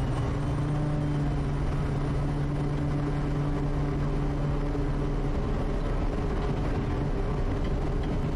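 Quest Kodiak's Pratt & Whitney PT6A turboprop and propeller at takeoff power during the takeoff roll: a steady loud drone with a strong low propeller tone and a thin high turbine whine.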